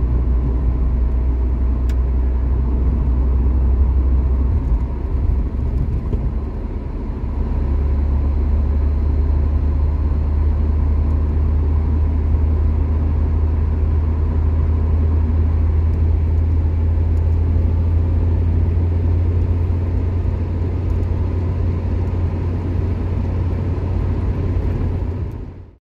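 A stock 1984 Mazda 929 hatchback's engine and road noise heard inside the cabin while cruising: a steady low drone. It dips briefly about five to seven seconds in, then settles slightly higher in pitch, and fades out at the very end.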